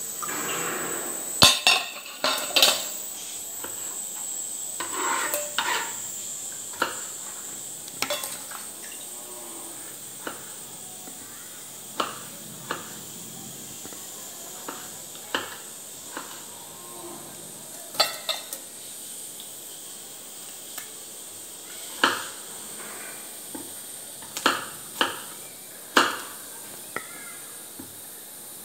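Kitchen knife cutting potatoes on a cutting board: irregular sharp knocks of the blade striking the board, a second or more apart.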